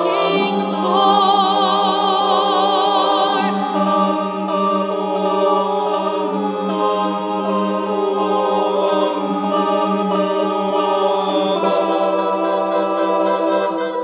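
Mixed a cappella choir of men and women singing slow, sustained chords over a held low note, with one voice's wide vibrato standing out in the first few seconds. The voices were recorded separately and layered together as a virtual choir.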